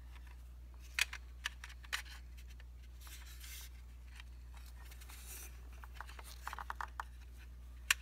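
Hands handling a SATA cable, an SSD and the drive-bay cover of an Akai MPC Live: a few sharp clicks about a second in, brief rustling scrapes around three and five seconds, and a quick run of small clicks near seven seconds.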